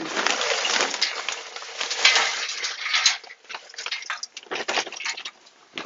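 Charcoal pouring from a paper bag into a steel smoker: a dense rattling clatter for about three seconds, thinning to scattered clicks as the last pieces fall and settle.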